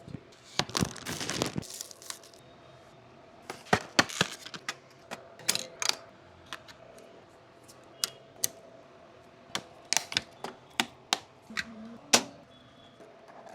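Clicks, taps and short rustles of computer parts being handled and snapped into place during a PC build, irregularly spaced, over a faint steady hum.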